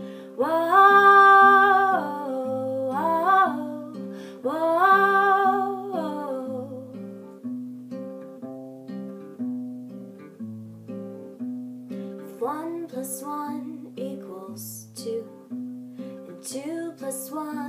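Acoustic guitar picked in a steady repeating pattern, with a woman singing long held phrases over it in the first six seconds and briefly again later; in between, the guitar plays alone.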